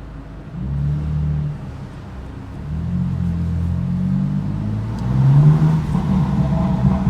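Car engine and exhaust revved up three times in a row, each rev held for a second or more, the last and loudest about five seconds in.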